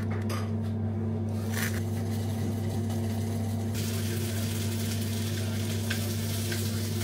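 A few knife strokes on a plastic chopping board, then a spoon stirring oil into chopped tomatoes in a glass bowl from about four seconds in, with a wet hiss and a couple of light clinks of the spoon on the glass. A steady low hum runs underneath.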